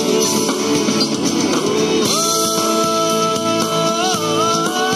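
Background music, a song; a long held note starts about two seconds in and wavers in pitch near the end.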